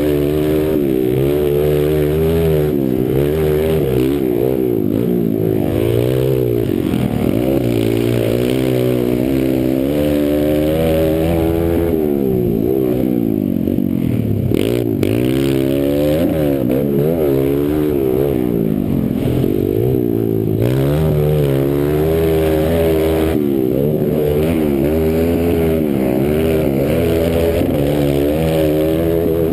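Kawasaki KLX pit bike's single-cylinder four-stroke engine heard from onboard while racing, its revs rising and falling over and over as the rider opens the throttle out of corners and backs off into them.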